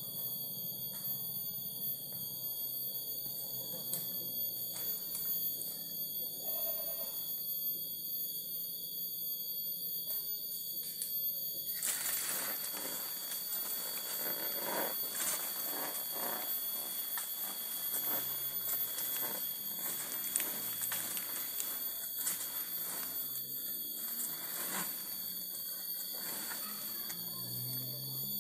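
A steady high-pitched insect drone of several shrill tones held throughout. From about twelve seconds in, a denser rustling noise rises over it.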